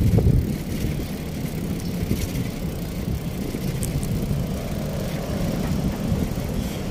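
Riding a bicycle along a paved street-side path: a steady low rumble of tyres and road noise with city traffic, with a few sharp knocks and a louder bump right at the start.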